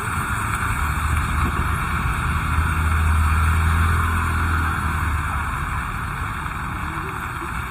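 Heavy rain falling steadily. Under it, a vehicle's low rumble swells about two seconds in and fades away after about five seconds, as it passes on the wet road.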